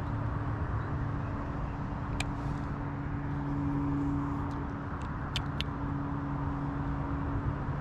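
A steady low motor hum, with a few faint sharp clicks about two and five seconds in.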